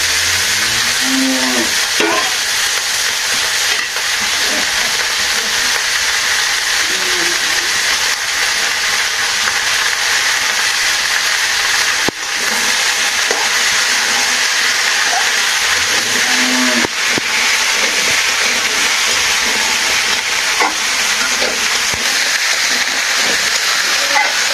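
Diced vegetables frying in oil in a wok: a steady, loud sizzle, with a few light knocks of the spatula as they are stirred.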